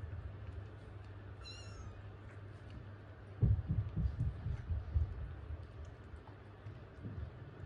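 A newborn kitten gives one short, high, wavering mew about a second and a half in. A couple of seconds later comes a run of dull low bumps and rustling close to the microphone, the loudest sound here.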